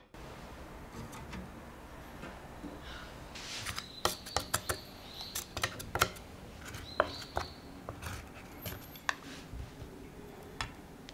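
Wooden chopsticks clicking and tapping against a ceramic dish while handling syrup-soaked yakgwa: a scattered run of sharp clicks with a few short, high squeaks, thinning out near the end.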